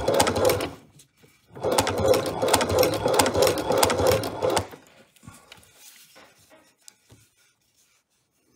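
Hand-cranked Chinese leather shoe patcher sewing leather: a rapid, rhythmic mechanical clatter of stitches in two runs with a short pause about a second in. It stops a little past the middle, leaving a few faint clicks of handling.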